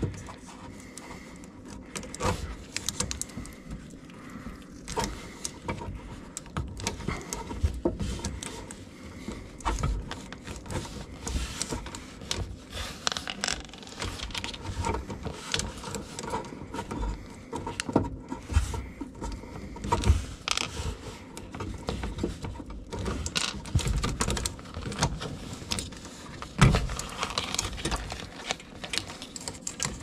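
Wire nuts being twisted off and the supply wires handled by hand at a dishwasher's electrical junction box: small, irregular clicks, rattles and rustles, with a few louder knocks.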